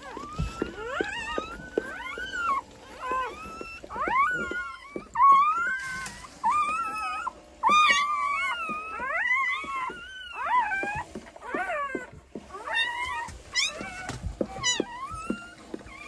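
Newborn Belgian Malinois puppies crying: a steady run of short, high-pitched squeals that rise and fall in pitch, one after another.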